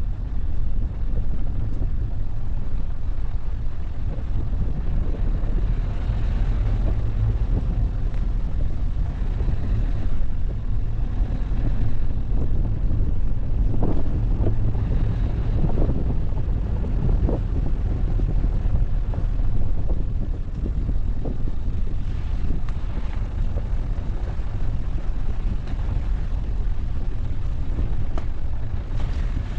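A car driving, with a steady low rumble of engine and tyres and a few short knocks and rattles about halfway through.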